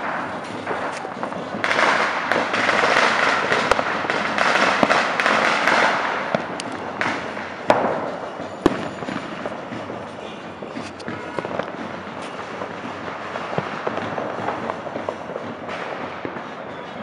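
Fireworks and firecrackers going off. A dense crackling hiss builds about two seconds in and lasts about four seconds, then come a couple of sharp cracks, then lighter scattered crackling.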